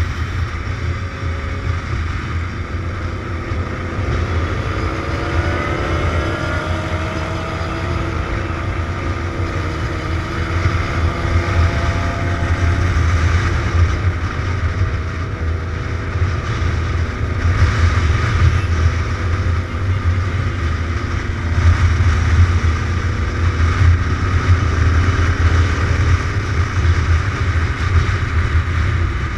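Motorcycle ridden at road speed: the engine runs steadily under a heavy low rumble of wind on the bike-mounted camera's microphone, with the engine pitch rising a few times in the first several seconds.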